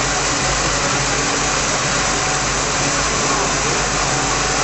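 A 5000 L stainless steel liquid detergent mixing tank running: a steady machine hum from the agitator drive, under the even rushing churn of the paddle stirring the foaming liquid.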